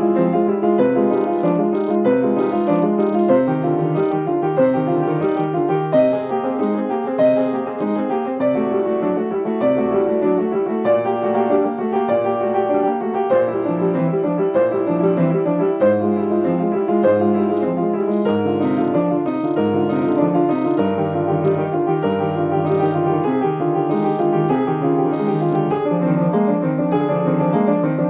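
Solo piano playing a classical-style piece in a steady, continuous run of notes, with deeper bass notes joining about halfway through.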